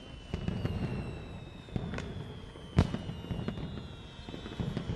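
Fireworks display going off: a steady crackle of sparks with scattered pops and one sharp bang about three seconds in.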